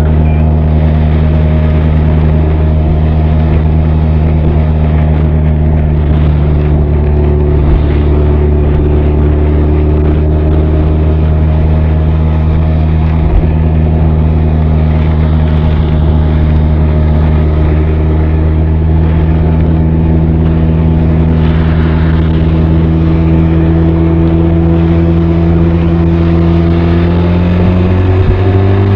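Benelli TRK 502's parallel-twin engine and exhaust running at a steady cruise, picked up close to the exhaust. The engine note holds steady, creeps slightly higher in the second half, then falls away near the end as the revs drop.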